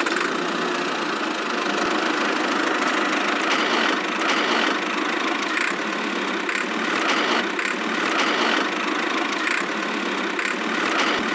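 A small motor running steadily at an even speed, with no deep low end to its sound.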